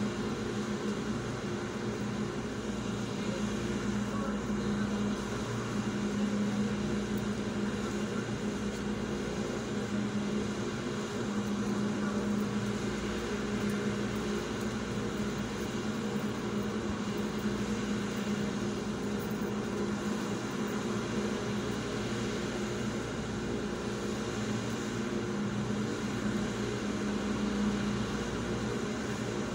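Steady mechanical hum with a constant low drone and fainter higher tones above it, unchanging throughout.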